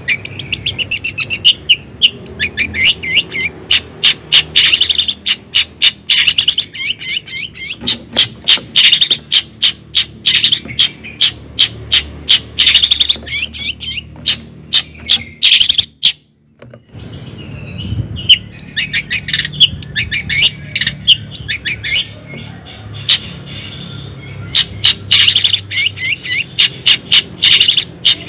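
Birds chirping loudly in rapid, continuous runs of short high notes, with a brief break about midway.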